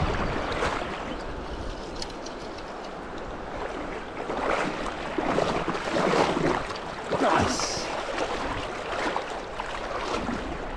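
Shallow river water running, with splashing in the middle as a small hooked rainbow trout is brought into a landing net.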